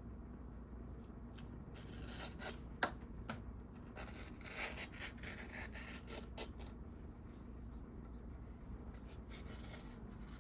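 Faint scraping and rubbing with a few light clicks and taps, as a freshly sharpened leather splitter blade is handled and tried on leather.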